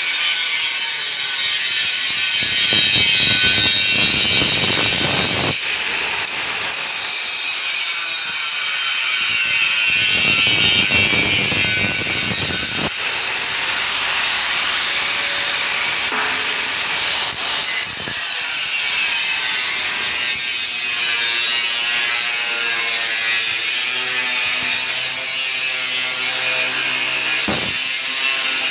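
Perforated metal cable tray being cut, a continuous rasping, sawing sound, louder over two stretches about three seconds long.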